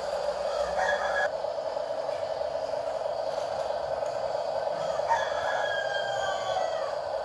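Rooster crowing twice over a steady hum: a short crow about a second in, then a long crow about five seconds in that falls slowly in pitch.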